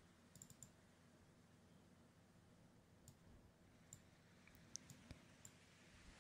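Near silence: faint room tone with a few scattered soft clicks, a quick cluster about half a second in, then single clicks roughly once a second later on.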